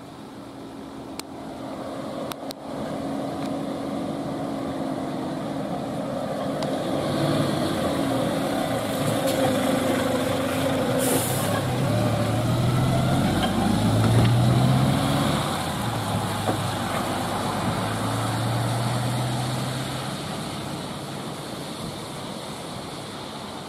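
Fire engine's diesel engine driving past close by, its note stepping up and down as it changes gear, with a short hiss of air brakes about eleven seconds in; it is loudest as it passes and fades as it drives away.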